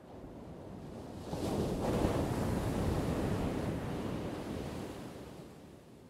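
Ocean surf: a single wave washing in, building over about two seconds and then fading away.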